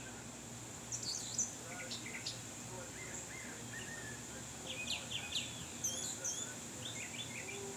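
Birds chirping: quick clusters of high, short chirps and tweets, about a second in, again around five to six seconds and near the end, over a faint steady low hum.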